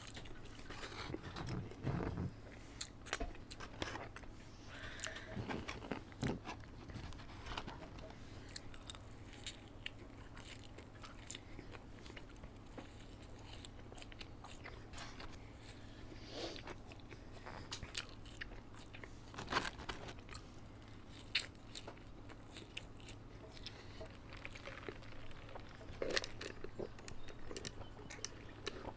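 Close-miked chewing and biting of McDonald's fast food, with irregular crunches and wet mouth clicks, over a faint steady low hum.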